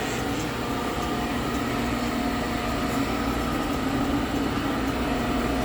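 Brake lathe running and spinning a truck brake rotor: a steady mechanical hum with a few held tones.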